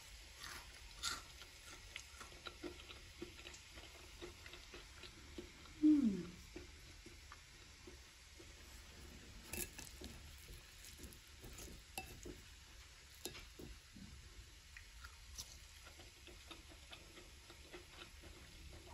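Wooden fork pressing into crispy fried courgette fritters on a ceramic plate: scattered faint crackles and clicks, with one short low sound falling in pitch about six seconds in, the loudest moment.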